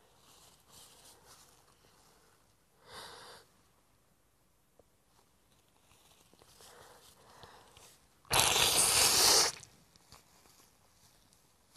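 A woman blowing her nose hard into a tissue while crying: one loud blow lasting just over a second, a few seconds before the end, with a short, softer sniff about three seconds in.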